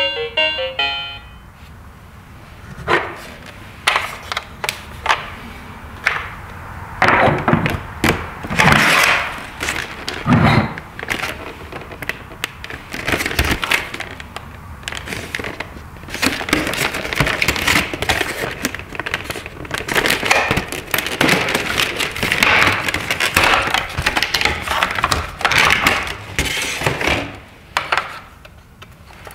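Stiff plastic blister packaging crackling and clicking as a toy fire truck is worked out of it: scattered snaps at first, then dense crinkling for most of the second half.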